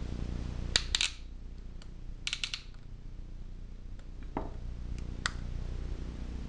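Piston ring compressor being tightened with its key: sharp metallic clicks of the ratchet come in quick clusters, then a few single clicks and a duller knock. A steady low hum runs underneath.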